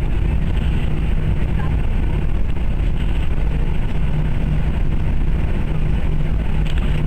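Steady engine drone of an aircraft heard from inside the cabin: a constant low hum with a steady low tone running through it, unchanging in level.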